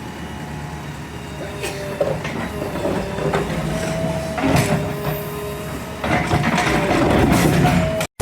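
JCB 3DX backhoe loader working: its diesel engine running steadily, with whining tones that come and go and scattered knocks.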